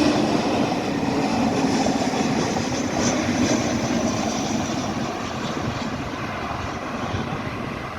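Jet engine noise of an airliner passing, loudest in the first half and slowly dying away.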